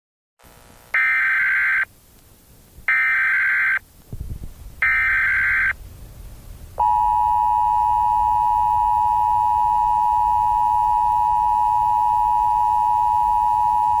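Emergency Alert System tones. Three short screeching bursts of SAME digital header data, each about a second long, are followed about seven seconds in by the steady two-tone EAS attention signal, which holds.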